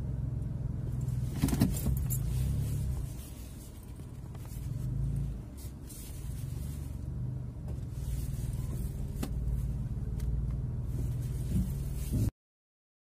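Steady low motor-vehicle rumble with a few sharp clicks; it cuts off abruptly near the end.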